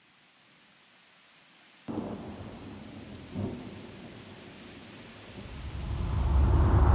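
Rain and thunder, laid in as a soundtrack effect: a faint hiss, then heavy rain that starts suddenly about two seconds in, a short thunderclap about a second and a half later, and a deep rumble that swells much louder near the end.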